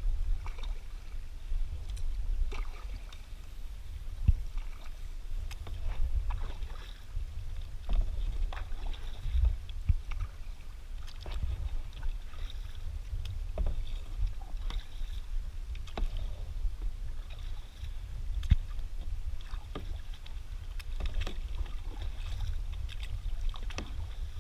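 Kayak paddle strokes: double-bladed paddles dipping and splashing in the sea beside a plastic sit-on-top kayak, with irregular short splashes and knocks. A steady low rumble runs underneath.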